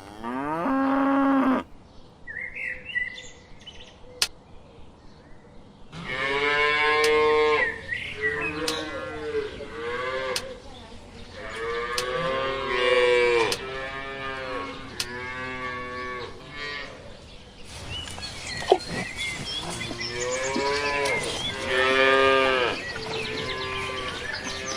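Cattle mooing, a string of drawn-out calls one after another, with a quieter gap a few seconds in.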